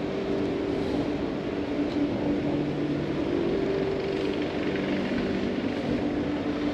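Steady mechanical hum, a few held tones over a constant wash of noise.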